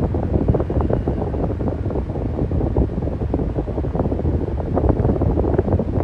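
Electric fan running steadily: a dense, low rushing of air with a constant fluttery buffeting, as of the airflow striking the microphone.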